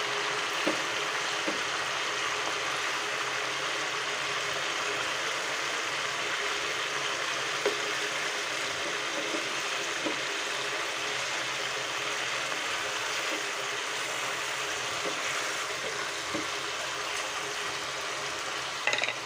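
Marinated chicken pieces sizzling and bubbling in oil and their own juices in a frying pan: a steady frying hiss. A few light knocks of a wooden spatula against the pan, with a brief clatter near the end.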